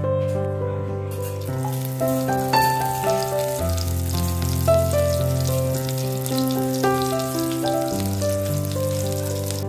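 Cumin seeds and chopped green chillies sizzling in hot oil in a pan, the sizzle growing stronger about two and a half seconds in. Soft piano music plays underneath throughout.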